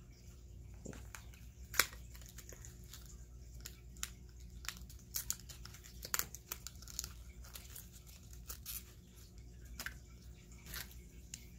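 Small highlighter box being opened by hand: tearing and crinkling packaging with scattered sharp clicks and taps, loudest about two seconds in and again around six seconds.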